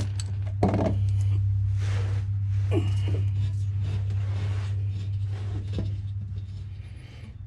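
Light metallic clicks and scrapes of bolts being started by hand into a differential cover, over a steady low hum.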